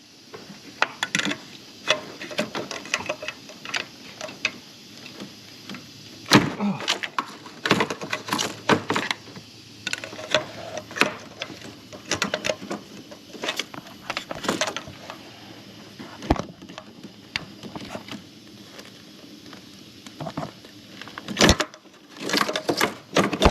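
Long needle-nose pliers clicking and scraping against metal down inside a spark plug well while groping for the torn rubber of a broken ignition coil boot: irregular light clicks and knocks, with a sharper knock near the end.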